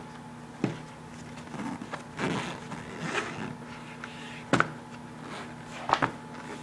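A zippered fabric storage case being handled: scratchy rustling and zipper sounds in the middle, with a few sharp knocks as the case is turned and set on the table.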